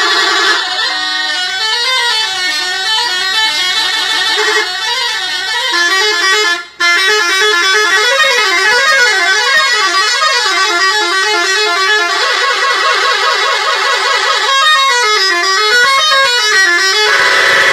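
Indonesian bus 'telolet' musical horn playing a long, loud, warbling melody that jumps quickly back and forth between a few notes. It cuts out for a split second about seven seconds in, then carries on.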